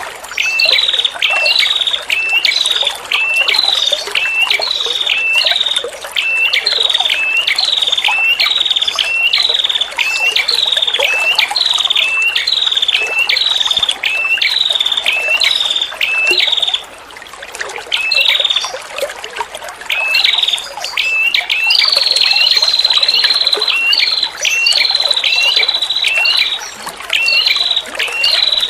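Female prenjak kepala merah calling: short, sharp, repeated notes at about two a second, with a short pause just before the middle and a long trill in the second half. Trickling water runs under the calls.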